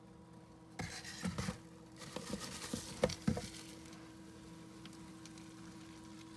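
Cardboard tubes being shifted by hand, rubbing and tapping against each other and the bin floor: a run of scratchy rustles and light knocks starting about a second in, loudest around three seconds, then quieting down.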